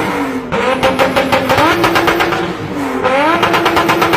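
2JZ inline-six revved again and again against its launch-control limiter: the pitch climbs, holds flat at the limit with rapid popping and crackling, falls away, then climbs back. This happens twice, and the engine is back on the limiter near the end.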